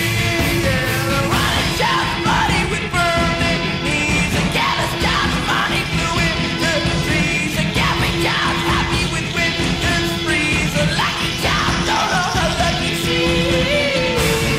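Loud rock music with a yelled, sung vocal over a dense band backing.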